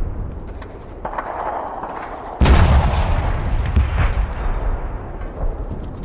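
Battlefield sound effect of artillery and gunfire: a constant low rumble with scattered sharp shots, then a heavy artillery blast about two and a half seconds in whose rumble slowly dies away.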